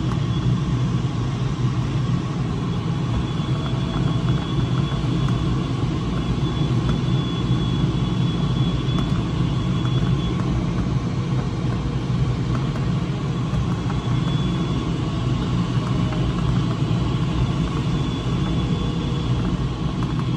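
Steady rumble of airflow around a glider's canopy in flight, heard inside the cockpit. A faint high tone comes and goes over it.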